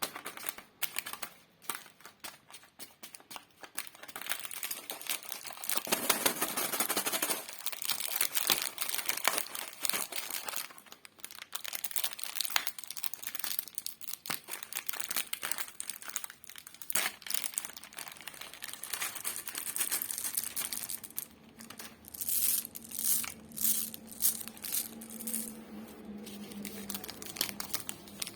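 Plastic lollipop wrappers crinkling and tearing close to the microphone, a continuous run of irregular crackles with a louder burst about six seconds in.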